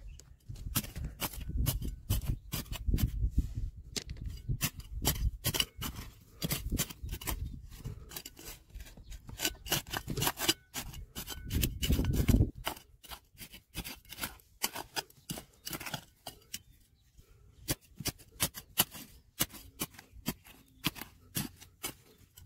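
Hand tool scraping and clicking against stone and gravel in quick, irregular strokes. It is busiest in the first half and thins to scattered clicks after about 13 seconds.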